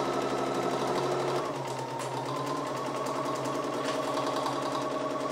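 Bernina sewing machine running steadily, stitching a seam through cork fabric; its pitch drops slightly about a second and a half in.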